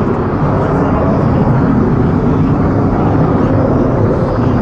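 F-16 fighter's single Pratt & Whitney F100 turbofan running at high power as the jet climbs away overhead: a loud, steady jet rumble.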